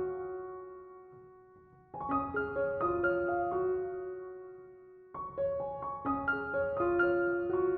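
Background piano music: short phrases of notes that climb and then hold a sustained note that fades away, with a new phrase starting about two seconds in and again about five seconds in.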